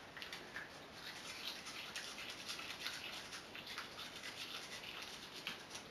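Toothbrush bristles scrubbing a dog's teeth in quick, short back-and-forth strokes: a faint, rapid scratching.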